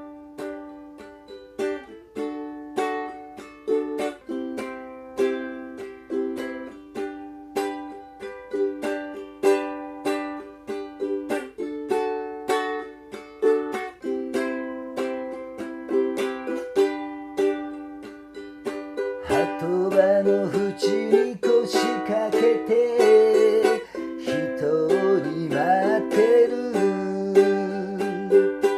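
Ukulele strummed in a steady rhythm, chord after chord. About 19 seconds in, a singer starts singing over it, the voice played and sung by the same performer.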